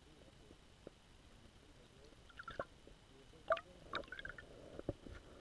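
Faint underwater sounds picked up by a camera in a waterproof housing beneath the ice: a few sharp clicks and knocks, with a cluster of short chirping, gurgling sounds in the middle, the loudest about three and a half seconds in.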